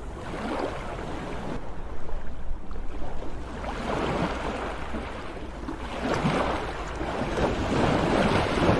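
Sea waves breaking and washing in, the surf swelling and fading every couple of seconds, with a steady low rumble underneath.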